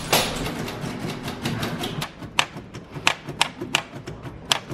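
Vintage manual typewriter being typed on: its keys and typebars striking the paper in quick, irregular clacks, denser at first and then as separate strikes a few times a second.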